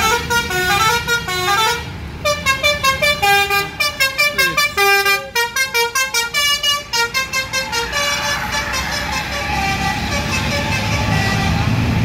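A bus's Basuri multi-tone telolet horn plays a fast melody of short stepped notes, pausing briefly about two seconds in and then running on in quick staccato bursts. About eight seconds in it stops, leaving the steady running noise of the bus engine and road traffic.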